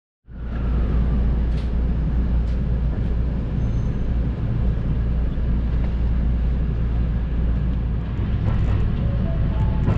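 Inside a JR Special Rapid electric train, a steady low rumble of the running train cuts in about a third of a second in. A few faint ticks and rattles sit over it.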